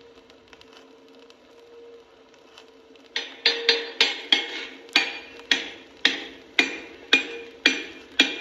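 Blacksmith's hammer striking hot iron on an anvil while making horseshoes: after about three seconds of near quiet, a steady rhythm of ringing blows begins, roughly two a second.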